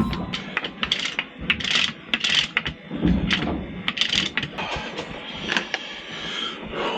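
Small metal parts of a Seldén in-mast furler's gear mechanism clinking and clicking as they are handled, in a string of irregular sharp clinks.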